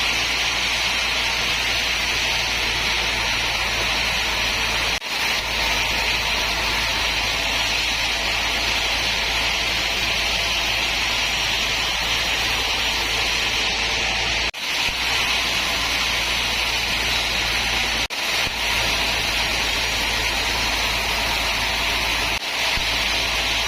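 Sawmill machinery running with a steady, unbroken whirring noise. The sound drops out suddenly and briefly four times.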